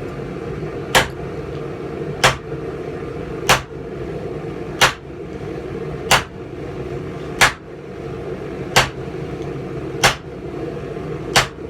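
Hammer blows on hot steel at an anvil: nine evenly spaced strikes, about one every second and a quarter, over a steady low drone.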